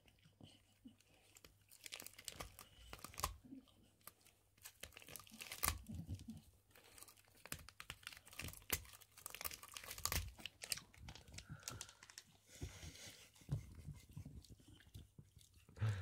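Glen of Imaal terrier chewing and tearing apart a dry, white-painted pine cone: irregular crunching and crackling as the scales break off.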